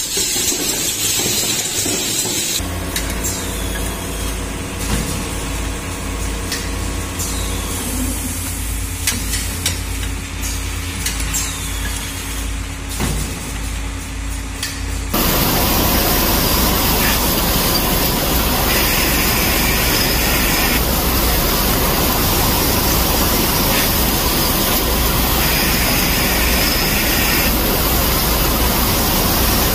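Automated production machinery: a steady low electric hum with scattered light pneumatic clicks. About halfway through it gives way abruptly to a much louder, steady hiss over the hum.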